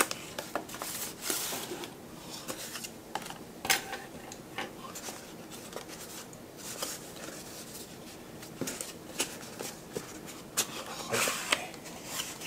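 Hands handling and opening a small white cardboard box: scattered light taps, rubs and scrapes of paperboard, with louder scraping rustles about a second in and again near the end.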